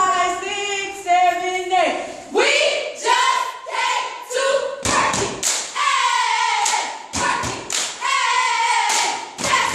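A group of girls chanting and singing together in unison, the voices held long near the start, with several sharp stomps and claps from the dancers cutting in through the rest.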